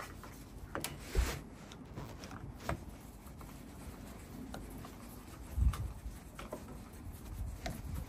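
Hand screwdriver turning the screws of a uPVC door handle, with faint scraping and small clicks of the bit in the screw heads. Two dull knocks, the louder about a second in.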